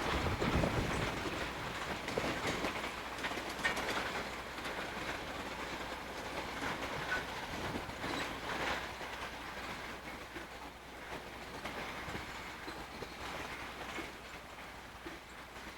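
Southern Pacific freight cars rolling past with wheels clacking over the rail joints. The sound slowly fades as the train moves away.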